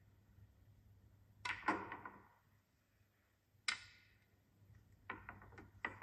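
Snooker balls clicking as the cue strikes the cue ball and the balls hit each other on the table. Two sharp clicks come close together about a second and a half in, another a couple of seconds later, and several quick clicks near the end, heard through a television's speaker.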